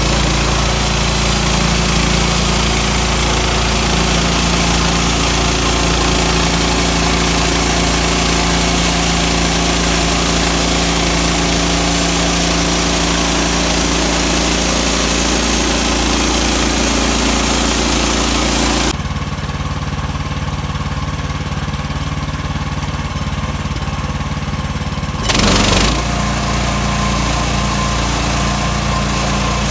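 A sawmill's engine running steadily while the saw cuts through a log, with a dense high cutting noise over the engine hum. About two-thirds of the way through, the cutting noise drops away suddenly for about six seconds, leaving the engine, then comes back with a short loud burst.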